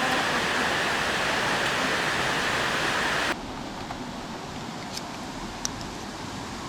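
Mountain stream rushing steadily. About a third of the way in the rush drops abruptly to a quieter level, with a few faint sharp ticks over it.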